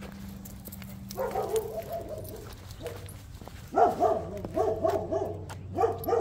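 A dog barking: one drawn-out call about a second in, then a quick run of short barks in the second half.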